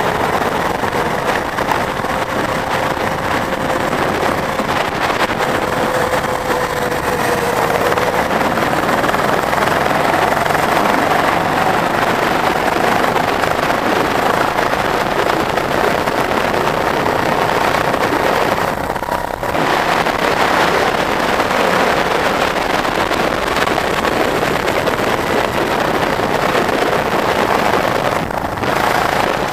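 Go-kart engine running at racing speed, heard from on board the kart, its pitch rising and falling with the throttle through the corners. The sound briefly drops about two-thirds of the way through and again near the end, as the throttle is lifted.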